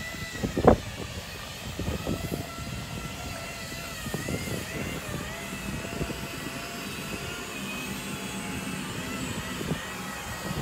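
Truck engine idling with a steady low rumble and a faint wavering whine above it. A sharp knock comes under a second in.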